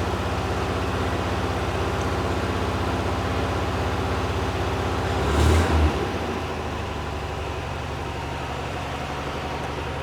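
1974 Volkswagen Bus air-cooled flat-four engine idling steadily. About five and a half seconds in there is a brief blip in engine speed, after which it settles back to a slightly quieter idle.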